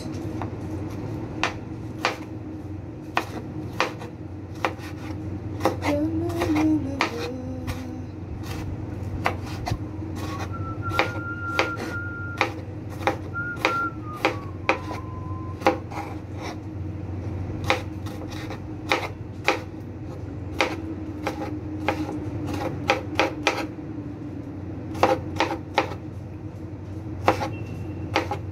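Knife chopping on a cutting board: irregular sharp knocks, often one or two a second, with a steady low hum underneath.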